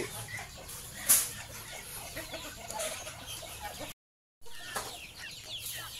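Chickens clucking in a mixed flock of chickens and Muscovy ducks, with one sharp loud sound about a second in. The audio cuts out completely for about half a second just before the four-second mark.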